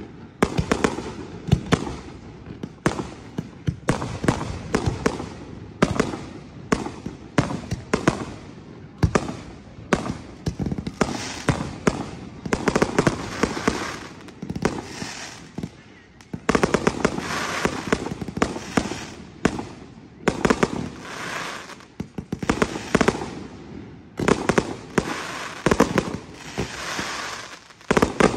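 Aerial fireworks display: repeated sharp bangs of shells bursting, with dense runs of rapid popping in several stretches.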